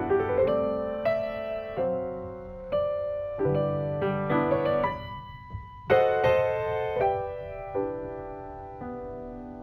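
Slow solo piano music, with held chords and melody notes that ring out and fade.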